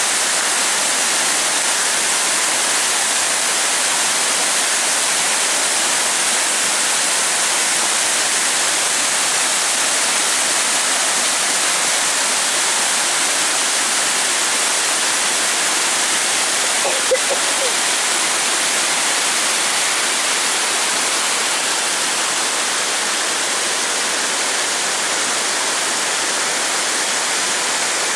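Steady, loud rush of water pouring down a dam's concrete spillway.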